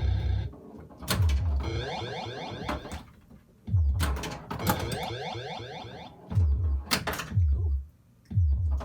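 A 1979 Williams Gorgar pinball machine in play. Deep thumps and sharp clacks from its flippers and solenoids come every two to three seconds, each followed by its electronic sound effects: stacked tones that slide in pitch.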